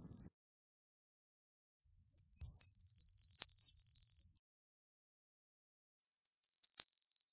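Eurasian blue tit singing: each phrase opens with a few thin, high notes stepping down in pitch, then runs into a fast trill on one lower note. The tail of one phrase ends right at the start, a full phrase of about two and a half seconds comes about two seconds in, and another begins about six seconds in.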